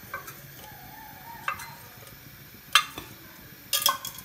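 Short metallic clinks and knocks of a steel oil container and its wire handle being handled and set down by the stove. The clinks are spread out over the few seconds: a light one at the start, one about a second and a half in, the loudest just under three seconds in, and a quick pair near the end.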